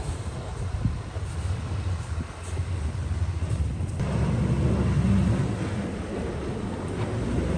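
A vehicle engine running steadily, growing louder about four seconds in as it works harder or comes closer.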